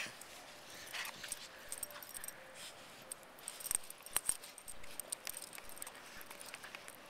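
Metal tags on two puggles' collars jangling in quick, irregular clicks and tinkles as the dogs bound through deep snow. The jangling is loudest about four seconds in.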